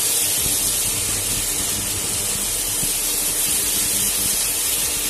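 Tomato and onion masala sizzling steadily in a nonstick pan as it is stirred continuously, the tomatoes frying down until they soften.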